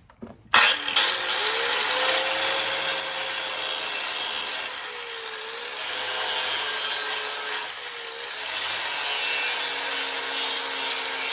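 Electric angle grinder switched on and spinning up about half a second in, then grinding the steel edge of a lawnmower blade clamped in a vise: a steady harsh hiss over the motor's whine. The grinding eases off twice, about five and eight seconds in, as the pressure is let up to keep the blade from overheating.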